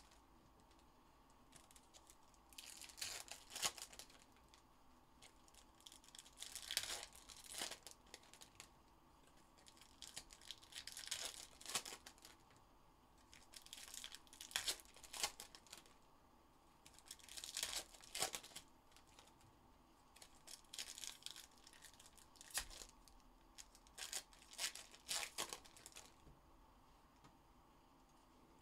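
Foil trading-card pack wrappers, 2021 Topps Chrome Formula 1 packs, being torn open and crinkled by hand, one pack after another: about seven short bursts of tearing and crinkling, roughly every three to four seconds.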